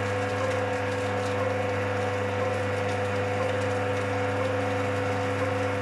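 Electric water pump with a pressure vessel running, a steady motor hum with a strong low tone, as it pressurizes the cooling-water circuit for the diffusion pump's baffle; a rotary-vane rough vacuum pump runs along with it.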